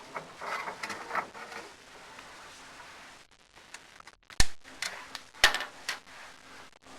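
Sharp knocks and light clatter of chimney inspection camera gear being worked down a clay-tile flue: two loud knocks about four seconds in and a second later, with smaller ticks around them.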